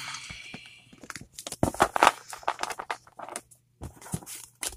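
Loose baseball cards being gathered up and squared into a stack on a tabletop: irregular light taps, flicks and sliding rustles of card stock, loudest about two seconds in.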